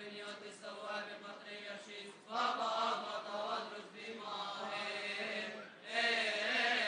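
Coptic Orthodox liturgical chant: voices singing a slow, melismatic hymn in Coptic, drawing out long vowels over a steady low note, in phrases that pause briefly twice.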